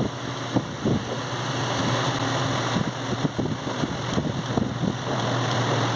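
9mm cartridges being pressed one by one into a Glock 17 magazine, a series of small irregular clicks, over a steady low hum.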